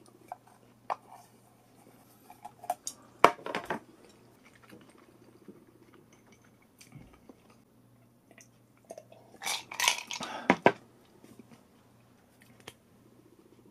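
Quiet eating at a table: chewing, with utensils clicking lightly on dishes now and then, and a louder burst of clatter about ten seconds in.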